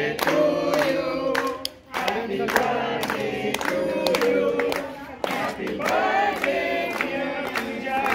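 A small group of men and women singing a birthday song together, clapping along in a steady rhythm.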